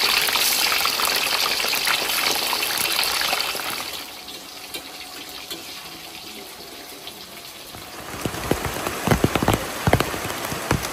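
Hot oil sizzling in a wok as pieces of food fry, loud at first and dropping to a quieter sizzle about four seconds in. From about eight seconds, rain falling, with large drops striking close by in sharp separate splats.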